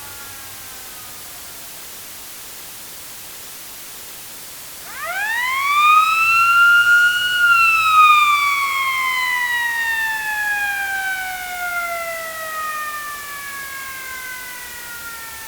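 A siren winds up over about two seconds to a high wail, then winds down slowly over about six seconds. Near the start the fading tail of an earlier siren falls away.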